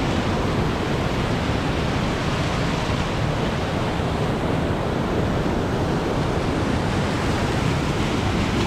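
Whitewater of a mountain creek rushing over boulders close by: a loud, steady rush of water with no let-up.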